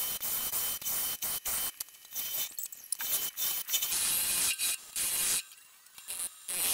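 Turning tool cutting the inside of a camphor laurel bowl spinning on a wood lathe: a hissing scrape of steel on wood, broken into short stretches that start and stop abruptly, with the lathe's faint steady whine underneath.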